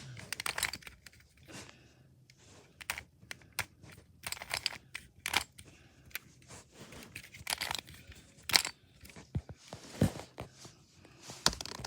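Rubik's Cube being twisted by hand: irregular plastic clicks and short scrapes, with a few louder clicks in the second half.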